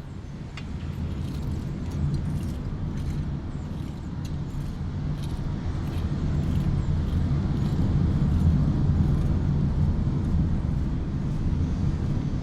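A low, steady rumble that swells up over the first couple of seconds and then holds, with faint scattered clicks above it.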